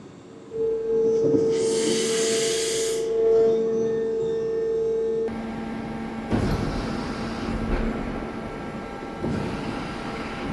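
Hydraulic ground cart bringing 3000 psi onto an A320's hydraulic system: a steady whine starts about half a second in, with a hiss over it for a second or so. The whine stops after about five seconds, giving way to rougher mechanical running noise with a couple of knocks.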